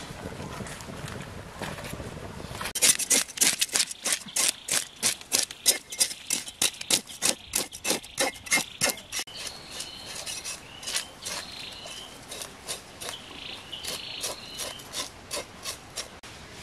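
A knife scraping the scales off a whole fish in quick, regular strokes, about three a second, starting about three seconds in and growing lighter in the second half.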